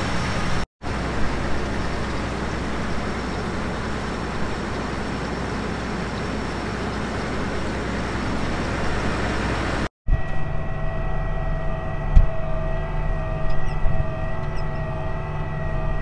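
John Deere combine's diesel engine running steadily, heard from outside beside the machine. After a cut, the steady engine hum and whine inside the combine's cab as it drives, with a few knocks.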